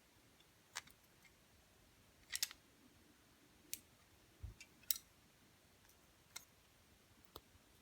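Scattered sharp little clicks and taps, about seven in all over a quiet background, with a quick cluster about two and a half seconds in and the loudest click just before the five-second mark.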